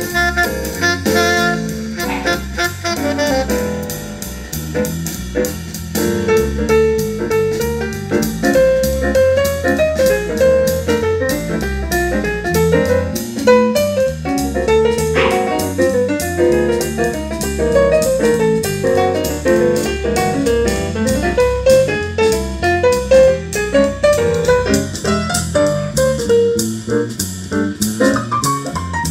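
Instrumental jazz, a saxophone tune over piano and drums, played back through a pair of Infinity RS 1001 bookshelf speakers with 1-inch Polyspherite dome tweeters as a listening test, heard in the room.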